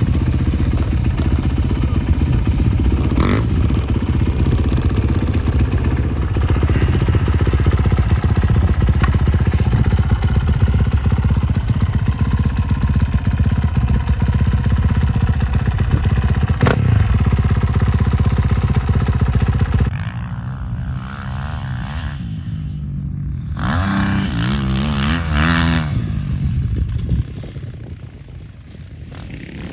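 Four-stroke 450 motocross bike engine running hard for about twenty seconds, with heavy wind-like noise. It then drops off abruptly; a few seconds later a bike is heard revving up and down, and it fades away near the end.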